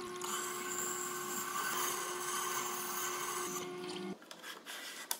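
An axe blade being ground against the turning stone of a slow-speed wet grinder: a steady rasping over the machine's hum. The grinding stops about four seconds in, when the axe is lifted off the stone.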